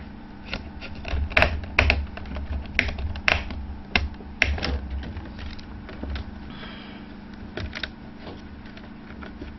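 Irregular sharp clicks and taps of a small screwdriver and fingertips on the screws and plastic chassis of an HP 625 laptop as its wireless card is screwed down. The clicks are thickest in the first half and thin out later, over a steady low hum.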